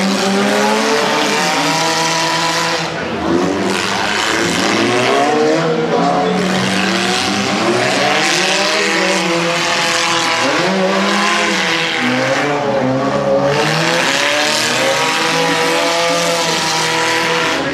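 Several demolition derby cars racing around a figure-8 track, their engines revving up and down in overlapping rising and falling tones.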